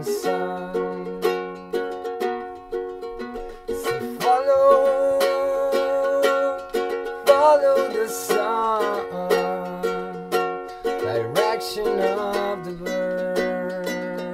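Background music: a steady picked accompaniment, with a wavering held melody line coming in above it about four seconds in.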